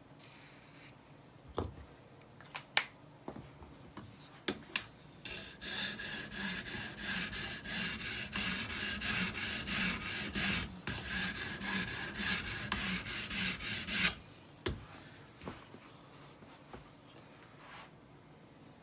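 Sharpening stone on an Edge Pro sharpener stroked back and forth along a knife edge in a quick, even rasping rhythm for about nine seconds, then stopping abruptly. These are test strokes to see where the stone meets the freshly marked edge. A few light clicks of handling come before and after.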